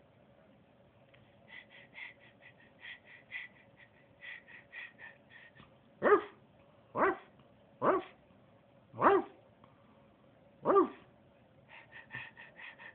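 A dog giving a quick run of short high-pitched yips, then barking five times about a second apart, with more short yips near the end.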